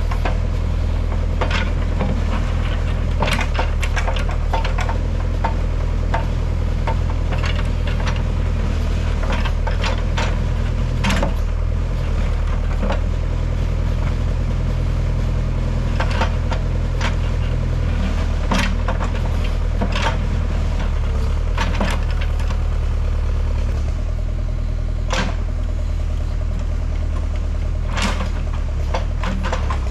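Tractor backhoe digging: its engine runs steadily under load, with irregular sharp clanks and knocks from the bucket and linkage throughout.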